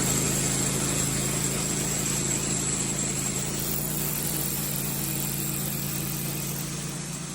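An engine running at a steady speed, easing slightly in loudness near the end.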